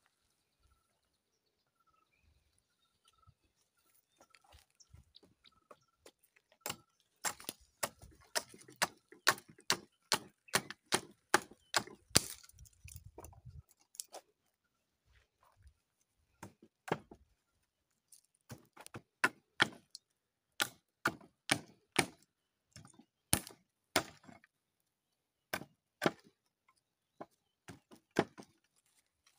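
Small hand axe chopping into a dry, hollow log: a run of sharp wooden chops, roughly two a second, with a couple of short breaks.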